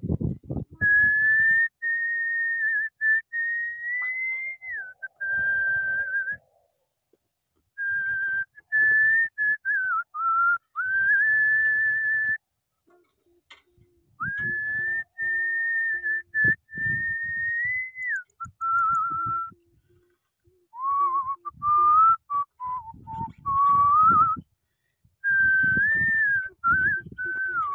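A person whistling a slow tune in long held notes with slides between them, in phrases broken by short pauses.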